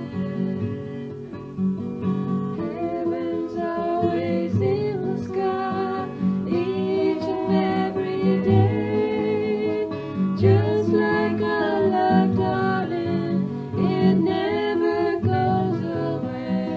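A song with a voice singing over acoustic guitar.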